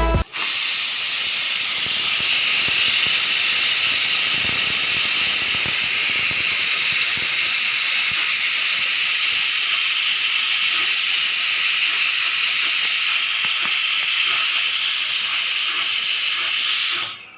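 Pressure cooker whistle venting steam: a loud, steady, high hiss with a thin whistling tone in it. It starts abruptly and cuts off just before the end.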